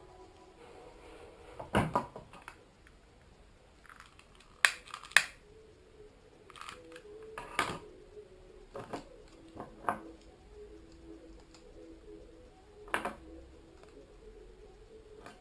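Handling noise on a wooden tabletop: scattered clicks and knocks as a silicone sealant cartridge and small tubes are picked up, knocked together and set down, the loudest a cluster about two seconds in and a pair about five seconds in.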